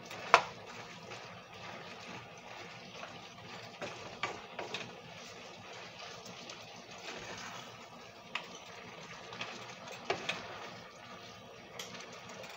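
Beef and broccoli sizzling in a frying pan while being tossed with a wooden spatula and a metal spoon. The utensils knock and scrape against the pan now and then, with the sharpest knock about half a second in.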